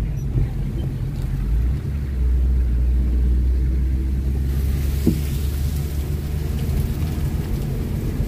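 A car climbing a steep mountain road: a steady low rumble of engine and road noise, with a faint hiss joining about halfway through.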